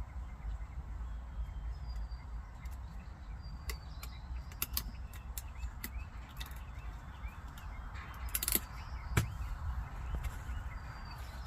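Horses chewing on a wooden stick: scattered crisp crunching clicks, with a louder crunch a little after eight seconds in and a knock just after it. Beneath them is a low rumble, likely wind on the microphone, and faint bird chirps.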